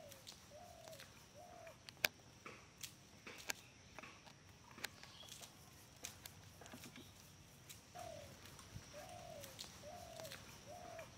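A dove cooing faintly in short runs of rising-and-falling notes, a few near the start and four more in the second half. Scattered sharp clicks and taps, and a faint steady high-pitched whine, sit under it.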